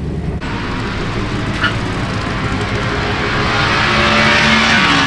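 Car engines running, a steady low rumble under a wash of hiss, growing louder about four seconds in.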